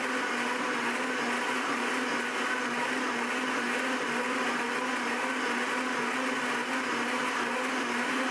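Blendtec Total Blender's 3 hp direct-drive motor running its preset whole juice cycle, blending carrots, water and ice into juice in the square jar: a steady whir with a constant hum.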